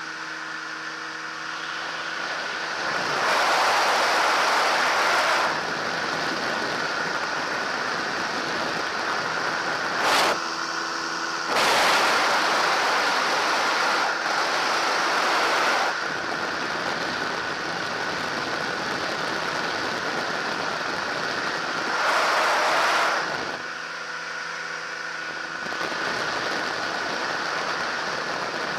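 Weight-shift microlight trike's engine and propeller droning steadily in flight, under heavy wind rush on the microphone. The wind noise swells several times: for a few seconds starting about three seconds in, in a longer stretch near the middle, and briefly again later.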